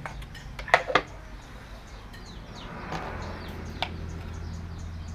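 Sharp clicks and clinks of a plastic condiment container and spoon as condiments are spooned out, the loudest a pair of clicks about a second in and another near the end. A low steady hum comes in about three seconds in.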